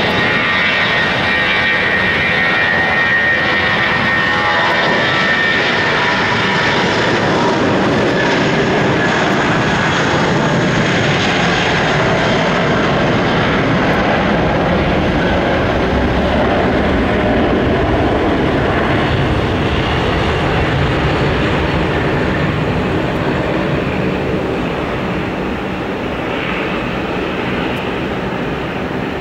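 Airbus A320's twin IAE V2500 turbofans at takeoff thrust through the takeoff roll and climb-out: a loud, steady jet engine noise with a high whine over it for the first several seconds. The sound eases off a little near the end as the airliner climbs away.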